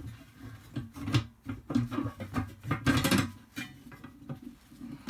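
Irregular knocks, clanks and scrapes of a tire and rim being worked with a manual bead breaker and tire irons, with a dense loud clatter about halfway through.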